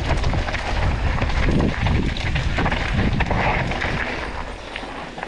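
Mountain bike riding down a narrow dirt trail: tyre noise and the clatter of the bike over rough ground, with wind buffeting the helmet-camera microphone in a heavy low rumble. It quietens over the last second or so.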